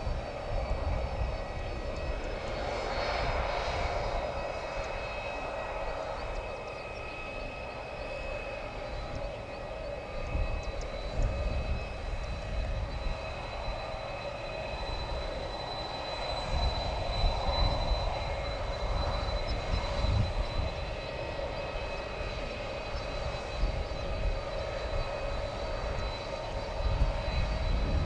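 Japan Airlines Boeing 767's twin GE CF6-80C2 turbofans running at taxi power as the jet turns on the runway to line up for takeoff. A steady jet whine with several whistling tones over a low rumble, growing louder near the end.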